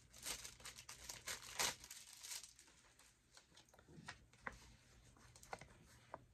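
Faint rustling and crinkling of packaging and a paper sticker sheet being handled and unwrapped, in irregular bursts, busiest in the first couple of seconds.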